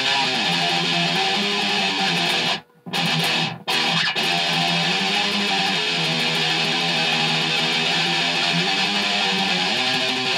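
Electric guitar tuned to Drop C playing a riff on the low strings. The riff stops dead twice, briefly, a little under three seconds in and again about half a second later, then runs on.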